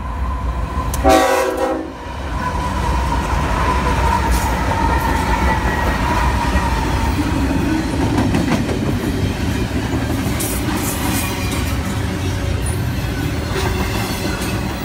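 A train horn gives one short blast about a second in. Then the train passes close by at speed, its wheels rolling steadily on the rails with a few clicks over the rail joints.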